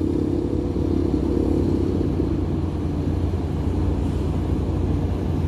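Ship's machinery running with a steady low drone, with a held, slightly pitched hum most noticeable in the first couple of seconds.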